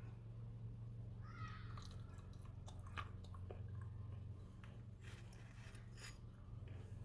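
Faint steady low hum with a few scattered small clicks and scrapes, and a brief faint squeak about a second in.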